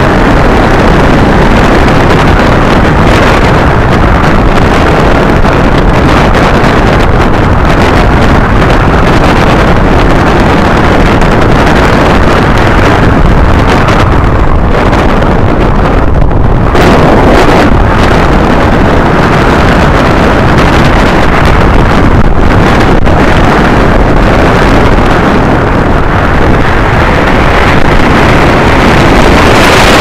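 Airflow rushing and buffeting over the camera microphone on a hang glider's upright in flight: a loud, steady wind roar with no speech or engine tone.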